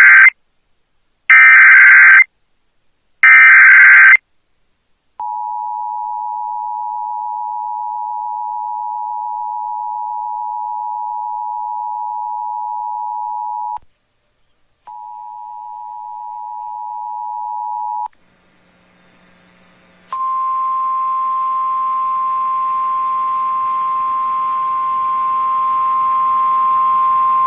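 Emergency Alert System warning tones. Three loud, harsh data bursts of about a second each (the SAME header) come first. Then the steady two-tone attention signal runs for about nine seconds, stops briefly and sounds for three seconds more. From about twenty seconds in, a single steady alert tone (the NOAA Weather Radio warning tone) sounds with radio hiss behind it.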